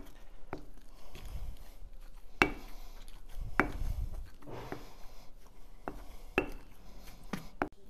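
A wooden pestle pounding and working a thick mash of potato, salt cod, garlic and olive oil in a stone mortar. Soft dull thuds come through the mash, with irregular sharper wooden knocks about once a second as the oil is worked in.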